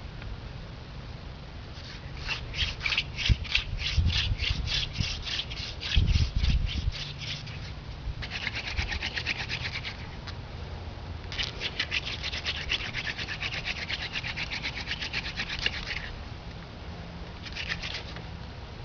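Hand-drill fire-by-friction: a horseweed spindle twirled between the palms, rubbing in a hole in a palm-wood fireboard, a rhythmic scratchy rubbing of about three to four strokes a second, in several runs with short pauses and a brief last run near the end.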